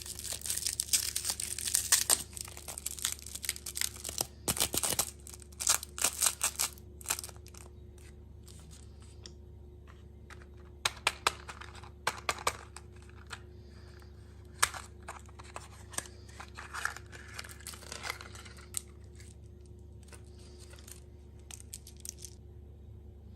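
Plastic food packaging crinkling and tearing, in dense crackles for the first several seconds, then in scattered crinkles and clicks that thin out toward the end.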